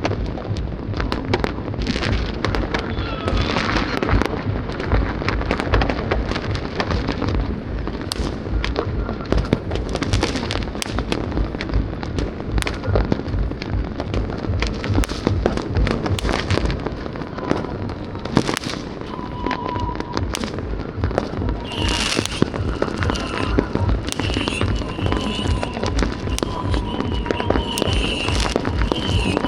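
Fireworks going off in a dense, continuous volley of bangs and crackles, many every second.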